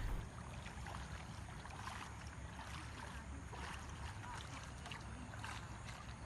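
Faint splashing and lapping of floodwater in irregular small strokes, over a low steady rumble.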